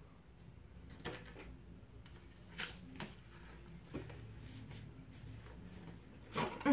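Faint handling noise from a cardboard cosmetics box being opened: a few scattered soft taps and rustles over a low room hum. Near the end comes a short, louder vocal sound.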